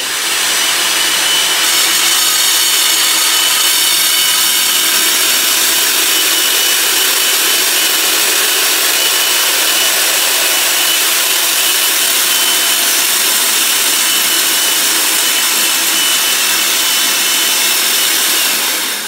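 Rig-mounted core drill cutting a hole through a concrete wall, running steadily under load. It makes a loud, even grinding noise with a thin high whine over it.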